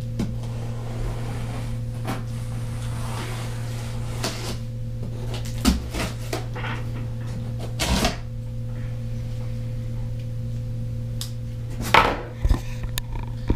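Cardboard shipping box being opened with a knife: scattered scrapes, rustles and clicks of the blade and cardboard, with a few louder knocks, over a steady low hum.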